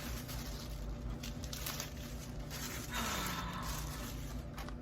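A washing machine runs with a steady low hum underneath, while packaging rustles and clicks faintly as it is handled. About three seconds in comes a soft, breathy vocal sound.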